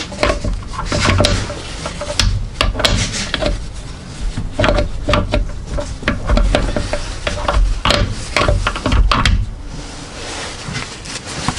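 Mainshaft and countershaft gear stacks of a Honda Prelude manual transmission being wiggled and worked out of the case by hand: irregular metallic clicks and knocks, with gears scraping against each other and the case.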